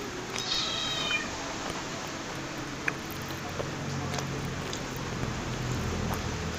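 A pet cat meowing once, a short falling call about half a second in, over a steady low hum.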